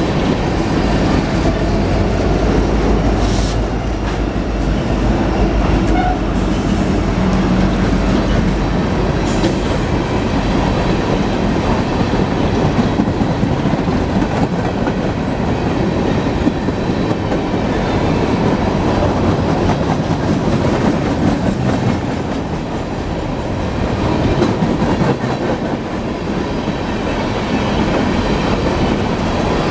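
Loaded BNSF coal train rolling past at close range: a steady heavy rumble with continuous wheel clatter over the rail joints and a few brief metallic clanks, the low rumble strongest in the first third.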